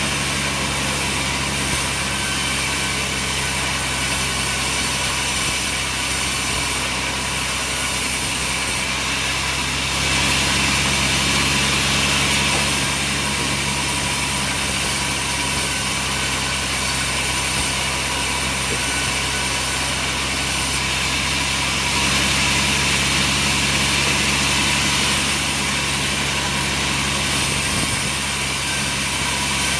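Sawmill engine running steadily, growing a little louder twice.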